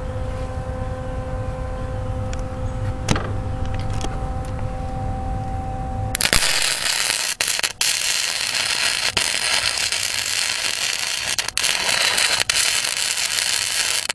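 Flux-core wire-feed (MIG) welding arc crackling and sizzling. It strikes suddenly about six seconds in and runs almost to the end, with a few brief breaks. Before it there is only a steady low hum.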